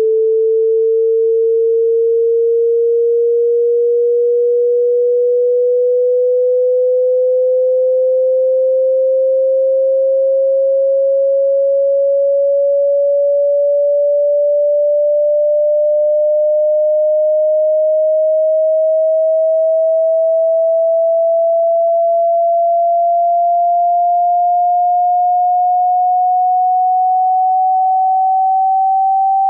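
Pure sine-wave test tone from a hearing-test frequency sweep, held at a steady level and gliding slowly and evenly upward in pitch, rising by nearly an octave.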